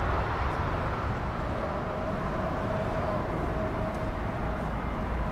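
Jet airliner on final approach, heard as a steady low engine rumble; about a second and a half in, a steady engine tone joins it.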